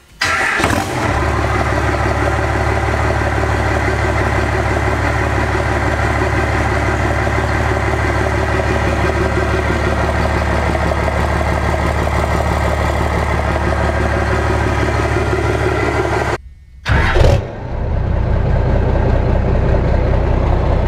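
Diesel pickup engine idling steadily through a freshly installed 8-inch straight exhaust stack, heard close to the stack. It comes in suddenly with a short burst right at the start; about sixteen seconds in the sound drops out briefly, gives another short burst, and the idle carries on.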